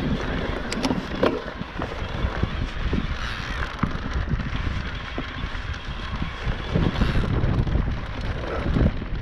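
Wind buffeting the microphone over the rattle and crunch of an electric mountain bike riding a stony dirt singletrack, with scattered clicks and knocks from the bike and the rocks under its tyres.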